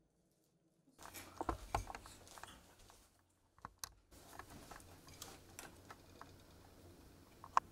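Irregular light clicks and taps over a faint steady hum, after about a second of near silence: small household handling noises, with a sharper click near the end.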